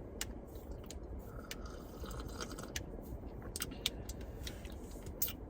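Close-up chewing and crunching of food, with scattered crisp clicks over a steady low background rumble.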